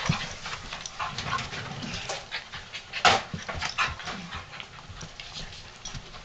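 A beagle-mix puppy and a pit bull mix dog play-wrestling, panting and scuffling with irregular short noises, the loudest a sharp burst about three seconds in.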